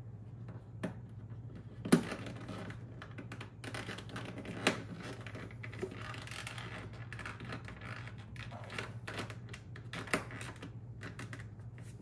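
Hard plastic clicking and rubbing as a small plastic LED light cover is pushed and snapped into the inner rim of a portable fridge-freezer's plastic liner: a few sharp clicks, the loudest about two seconds in, among softer scraping of plastic on plastic.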